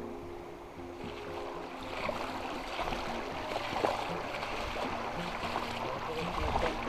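Shallow creek water babbling and splashing over stones, growing louder about two seconds in.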